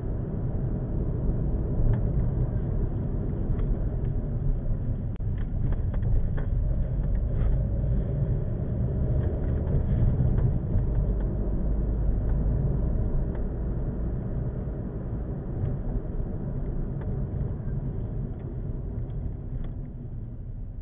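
Car driving slowly on a residential street, heard from inside the cabin: a steady low rumble of engine and tyre noise, with a few faint ticks in the middle. The rumble dies down near the end as the car slows.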